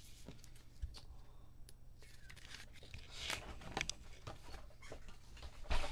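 Trading cards being handled and slid into plastic sleeves and top loaders on a table: scattered rustles, swishes and light taps, with a louder knock near the end.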